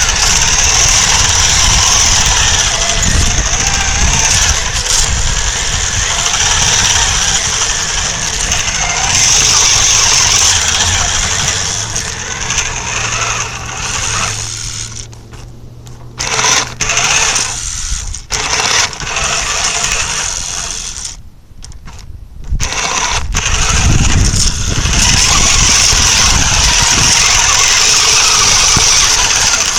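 Battery-powered RC truck's electric motor and gear drive running, heard up close from the truck itself, with a high whine over a rough rumble. It eases off and stops briefly a few times past the middle, then runs on.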